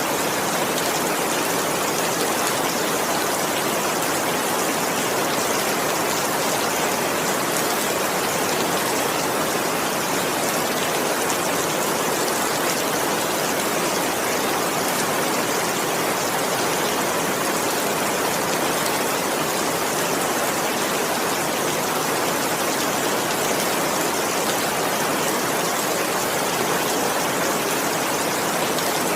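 Steady heavy rain, a dense even hiss with no thunder.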